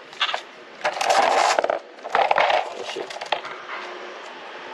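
Small hard objects clattering and rattling in two bursts, about a second in and again just after two seconds, with a few sharp clicks between.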